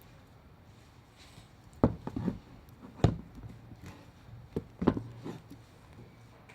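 Four sharp knocks about a second apart, each followed by a short clatter, as of slides and their packaging being handled and set down on a hard surface.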